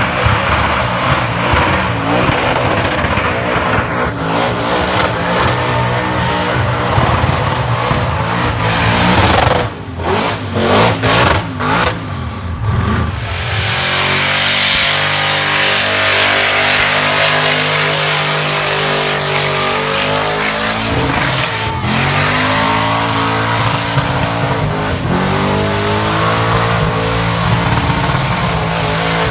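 Burnout car's engine revving hard as its rear tyres spin on the pad, with a loud hiss and screech of tyre noise. About ten seconds in, the engine note breaks up in a run of short cuts for a few seconds before it holds at high revs again.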